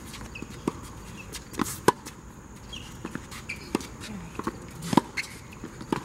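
Tennis rally on a hard court: a series of sharp pops as rackets strike the ball and the ball bounces, the loudest about two seconds and five seconds in.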